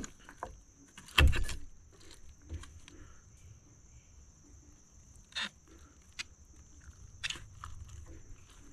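Knife and fingers carving a roasted whole chicken in a stainless steel bowl: scattered clicks and knocks of the blade against the bowl, the loudest a knock with a dull thud about a second in. A steady high hiss runs underneath.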